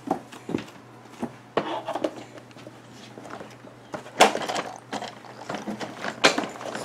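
Hard plastic toys on an Evenflo ExerSaucer Mega Splash activity center clacking and rattling as they are grabbed and knocked: irregular clicks and knocks, the loudest about four seconds in and again about six seconds in.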